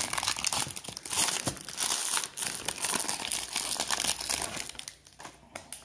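Foil wrapper of a Score football card pack being torn open and crinkled in the hands: a dense run of crackles that thins out about five seconds in.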